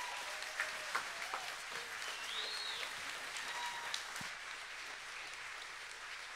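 Congregation applauding, many hands clapping together, slowly getting quieter.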